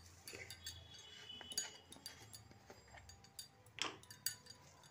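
Faint, scattered clinks and taps of kitchen utensils against cookware, over a low steady hum; the clearest tap comes near the end.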